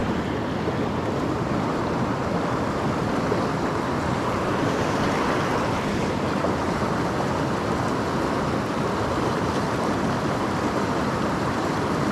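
Mountain creek running high: a steady rush of flowing water.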